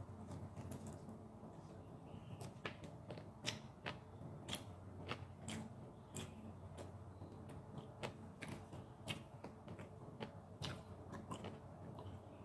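Close-miked chewing: soft, irregular wet mouth clicks and smacks, roughly one or two a second, from eating Filipino beef steak (bistek) with onions.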